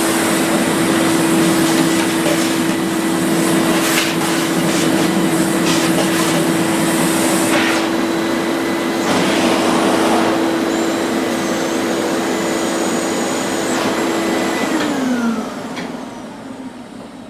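Old canister vacuum cleaner running with a steady hum, with a few knocks. About fifteen seconds in it is switched off and the motor winds down, its pitch falling as the sound fades.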